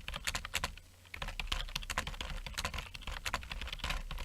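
Manual typewriter being typed on: quick, irregular key strikes clacking several times a second, with a brief pause about a second in, over a low steady hum.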